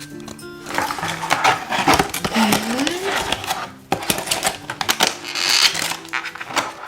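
Rapid crackling and clicking of plastic toy packaging being handled and opened, over soft background music.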